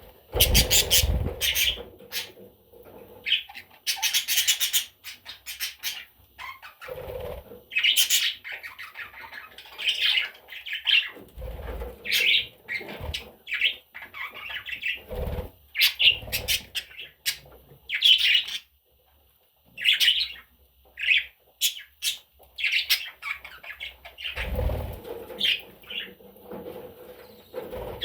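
Pet budgerigar chirping and chattering in many short, quick calls, with a few dull thumps in between.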